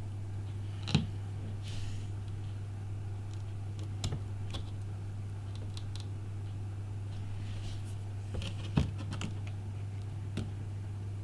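Scattered light clicks and taps of small tools on an iPhone 5's glass and frame while the cracked screen is being pried off, with two sharper clicks about a second in and near the end. A steady low hum runs underneath.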